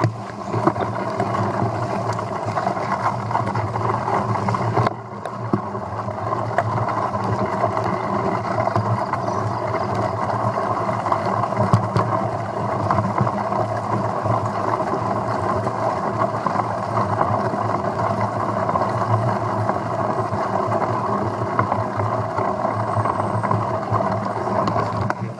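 Mountain bike rolling downhill on a rough, wet track: a steady rush of tyre and wind noise on the bike-mounted camera, with small rattles from the bike. The noise dips briefly about five seconds in.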